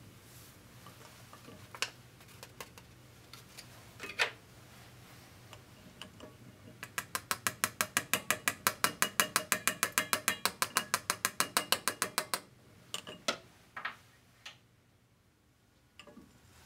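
Metal spatula tapping rapidly against a funnel, about eight light ticks a second for roughly five seconds, knocking ground grain sample down into a glass viscometer tube. A few single clicks of handling come before and after.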